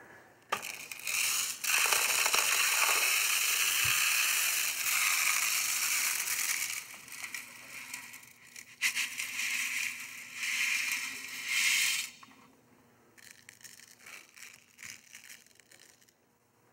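Small pebbles poured from a glass bowl into a clear container over large rocks, a steady rattling hiss that rises and falls as the pour goes on. It stops about twelve seconds in, leaving only a few faint clicks.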